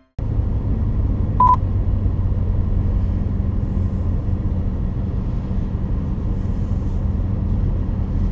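The Corvette C7 Z06's supercharged V8 running steadily at low revs, a low even drone with no revving. A single short electronic beep sounds about a second and a half in.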